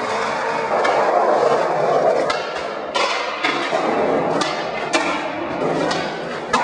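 Sharp knocks and cracks at irregular intervals, roughly one a second, over a continuous rough, rumbling noise.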